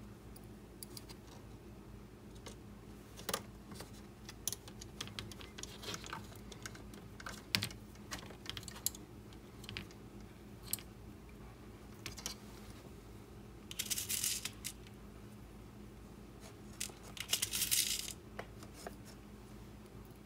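Scattered small clicks and taps of tiny screws and metal hardware being handled and fitted into a 3D-printed plastic frame, with two short scratchy rustles in the last third.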